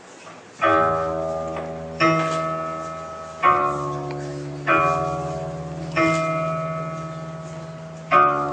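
Tuned bells struck one at a time: six strikes, a new note roughly every 1.3 seconds, each ringing on with several tones as it fades.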